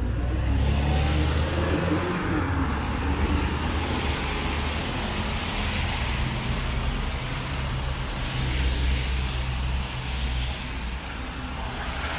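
Road traffic passing on a snowy city street: car and truck engines humming, with steady tyre noise that swells and eases as vehicles go by.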